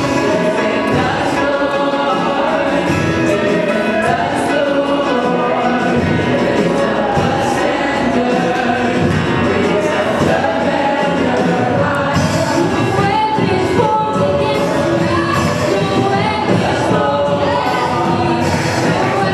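Mixed choir of men and women singing a gospel worship song together, with instrumental accompaniment.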